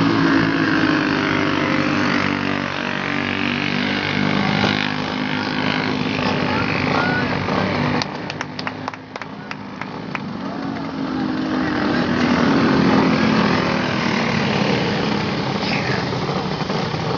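A pack of racing go-karts with small single-cylinder four-stroke clone engines running on a dirt oval, their engine notes rising and falling in pitch as they pass and go round. The sound drops off about eight seconds in, with a few sharp clicks, then builds again as the karts come back round.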